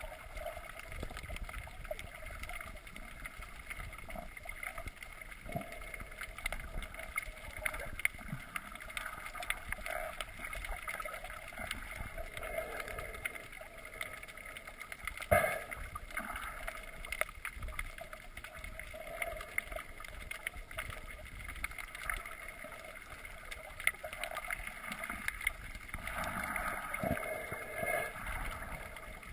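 Underwater sound picked up by a GoPro in its waterproof housing: a steady, muffled water noise with faint crackling, and one sharp knock about halfway through.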